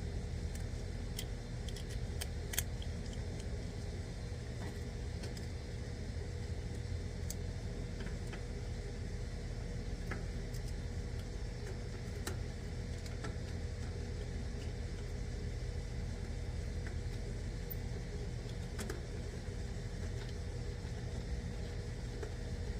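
Steady low mechanical hum with a faint steady tone. Over it come scattered light clicks and metallic clinks of hand tools and wiring being handled.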